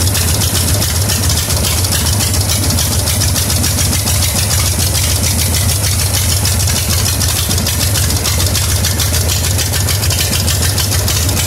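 Harley-Davidson Shovelhead V-twin engine idling steadily.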